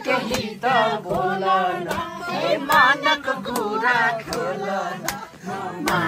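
Several voices singing a Nepali song together, with hand claps about twice a second.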